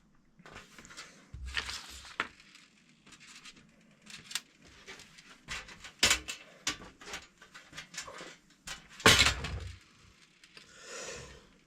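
Scattered clicks and knocks of small parts and tools being handled during bolt-together assembly, with a louder thump about nine seconds in.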